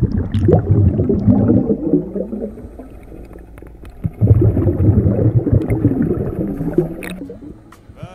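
Muffled underwater water noise, gurgling and rushing, heard through a camera underwater. It comes in two loud stretches with a quieter gap between them, and there are a few sharp clicks.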